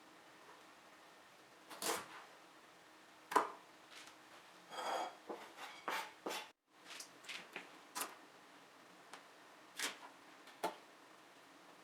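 Scattered light knocks and clicks of small objects being handled, with a short scraping rub about five seconds in and a brief cut to silence just after halfway.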